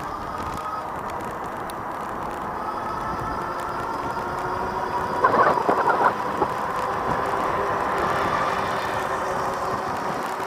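Motor whine from a ridden motorized bike, a steady whine with a couple of tones drifting slowly upward, over road and wind noise. A short burst of rattling clatter comes about five seconds in.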